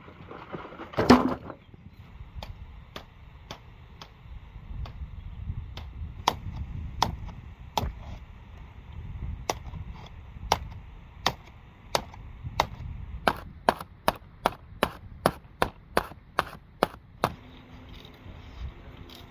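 Machete chopping into green bamboo: a loud crack about a second in, then a run of sharp chopping strokes that speed up to about three a second before stopping near the end.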